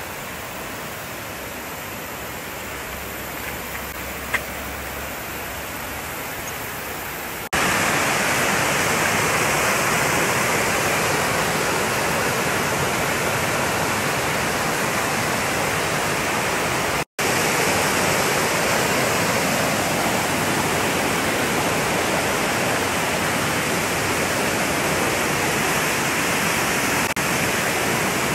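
Steady rush of water from a small waterfall cascading over rocks into a creek, which gets much louder about a quarter of the way in and cuts out for an instant just past the middle.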